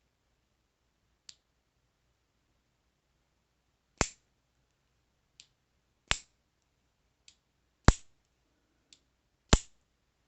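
Boker Kalashnikov Mini Dagger automatic knife, fitted with a new spring, fired open four times: each time a faint click as the blade is folded back and locked, then a sharp loud snap as the spring throws the blade open.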